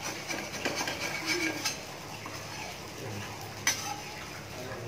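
A flat spatula scraping under a crisp dosa on a stone griddle and folding it over, a few short scrapes and clicks with a sharp clack near the end.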